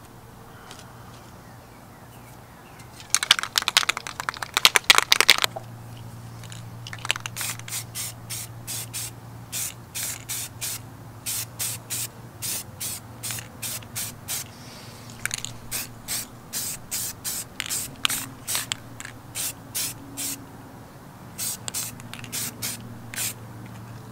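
Aerosol spray can of flat black paint: first shaken hard for about two seconds, its mixing ball rattling, then sprayed in many short, even bursts of hiss, about two a second.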